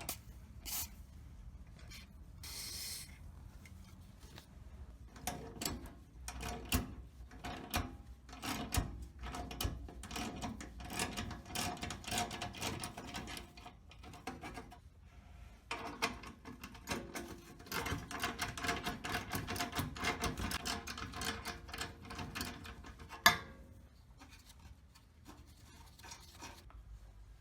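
Hand work on metal parts: scraping and rubbing strokes with scattered clicks and knocks, and one sharp knock near the end.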